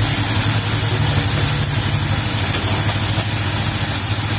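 Chopped onion and garlic frying in a hot metal wok with soy sauce just added, giving a steady sizzling hiss. Under it runs a steady low hum.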